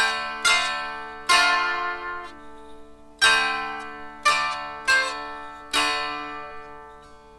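Dulcimer improvising: seven strummed chords at uneven intervals, each ringing out and fading, over drone strings sounding steadily underneath.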